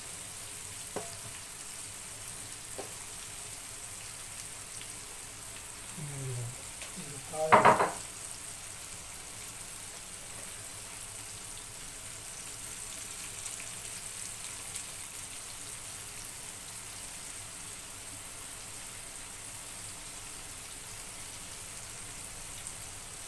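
Small flour-coated fish deep-frying in hot oil in a frying pan, giving a steady sizzle. A short burst of voice about seven seconds in is the loudest sound.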